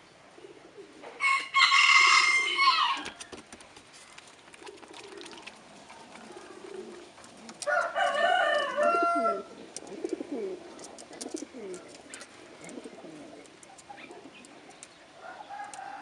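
Fancy pigeons cooing: low, repeated coos from a puffed-up pigeon bowing in display. Two loud, higher calls from another bird cut in, about a second in and near the middle, with a fainter one near the end.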